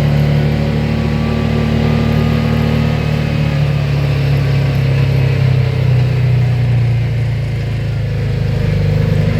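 A vehicle engine running loud and steady at close range, its pitch shifting slightly as the speed changes.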